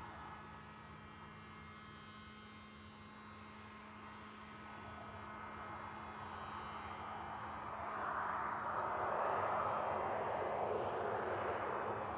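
Boeing 737 jet engines at a distance as the airliner lines up on the runway: a steady whine of several high tones over a low hum, swelling into a louder rush about eight seconds in.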